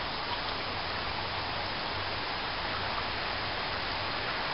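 Shallow stream flowing: a steady, even rush of running water.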